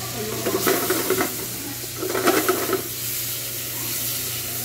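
Shrimp sizzling in butter in a frying pan, with two bursts of scraping and sloshing, about half a second and two seconds in, as the pan is shaken and tossed.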